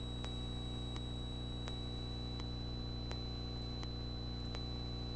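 Steady electrical hum and hiss of a Cessna 172 Skyhawk's cockpit intercom and radio audio in flight, with a thin high whine and faint clicks here and there.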